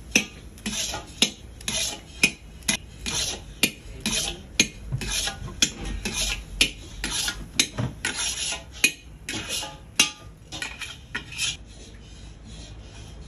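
Metal spatula scraping thick carrot kalakand mixture across a steel kadai, quick repeated strokes about two a second with sharp clinks of metal on metal. The strokes die away near the end.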